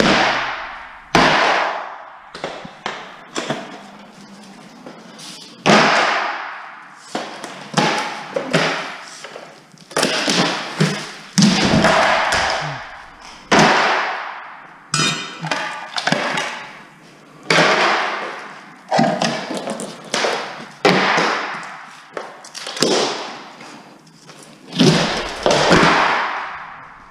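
Hardwood floorboards being pried up with a steel crowbar: a run of sharp cracks and clattering knocks, about one every second or two, as boards snap loose and drop.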